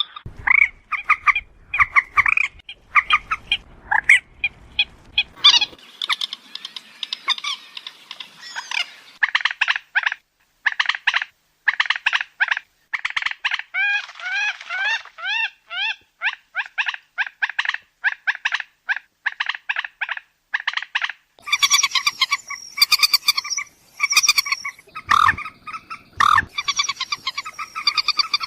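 Moorhen calls: many short, sharp call notes, repeated in quick series with brief gaps, some in fast runs. The sound changes character a few times, as if from different recorded takes.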